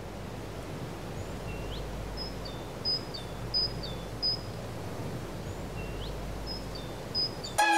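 Outdoor ambience: a steady background hiss and low rumble with small birds chirping, short high repeated notes and a couple of quick rising calls. Keyboard music starts suddenly just before the end.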